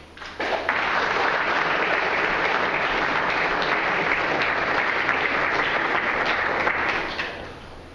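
Audience applauding, starting about half a second in, holding steady, then dying away near the end.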